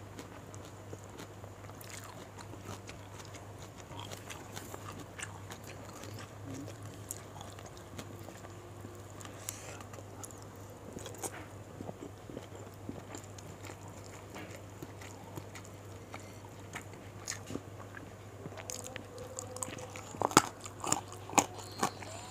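Close-miked mouth sounds of eating fried gourami, rice and raw leafy greens by hand: chewing, biting and small crunches with wet clicks. The sharpest clicks come near the end, over a steady low hum.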